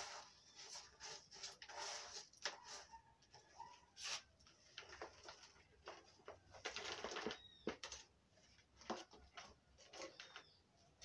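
Faint, irregular rustling and scraping of hands working loose potting substrate and pine bark in a plastic pot, with fern fronds brushing.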